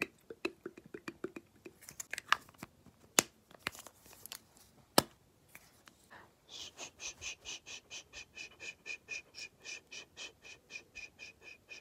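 Stick blush worked quickly against the camera: scattered taps and clicks, then from about six seconds in a fast, even dabbing of about five strokes a second.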